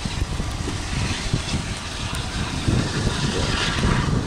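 Wind buffeting the microphone in irregular low gusts, over the fading rumble of a departing steam-hauled train as it recedes into the distance.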